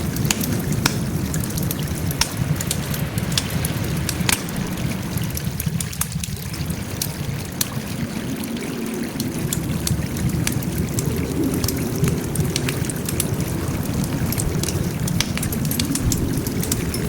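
Wood fire burning, with irregular sharp crackles and pops, several a second, over a steady low rumble of the flames.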